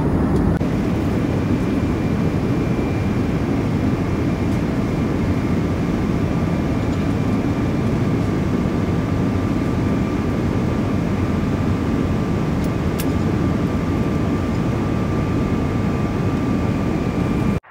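Steady jet airliner cabin noise in flight: an even low rumble with a faint steady high whine over it.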